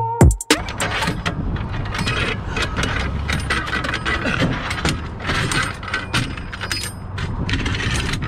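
A music track cuts off about half a second in. After that come many small, irregular clicks and rattles over a steady low rumble.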